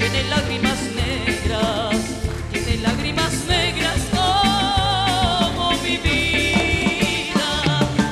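Live Latin band playing a bolero-son, with drum kit, hand percussion, bass guitar and piano keeping a steady beat. A woman sings over it into a handheld microphone, holding long notes with vibrato about halfway through.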